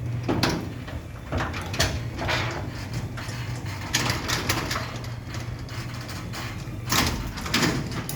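Chain-drive garage door opener running the door, a steady motor hum with irregular clanks and rattles from the moving door and its chain.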